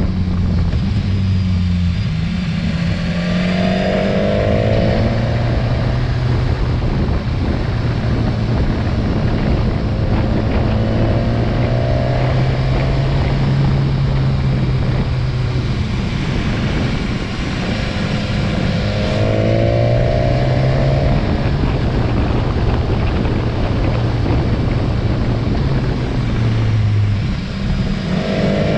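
Motorcycle engine running while riding, heard over a steady rush of wind and road noise. Its pitch holds steady for long stretches and rises several times as the rider accelerates out of bends.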